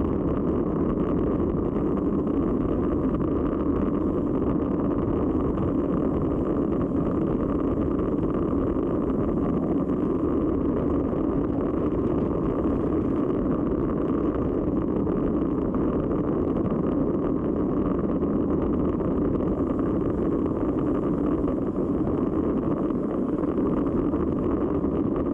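Wind rushing over the microphone of a camera on a racing bicycle descending at speed: a steady, unbroken rushing noise, heaviest in the low end.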